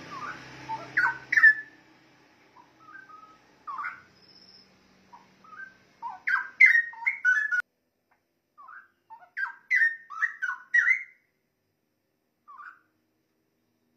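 Straw-headed bulbul (cucak rowo) singing: loud warbling phrases in three bursts, about a second in, midway and a few seconds later, with short single notes and pauses between them.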